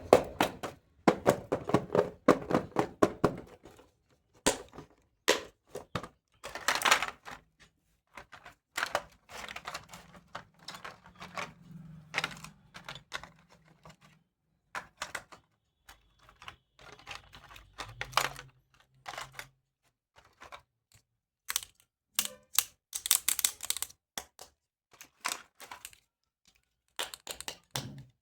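Hands handling the plastic pieces and packaging of a toy doctor kit: a long run of irregular plastic clicks and taps, with short rustles now and then.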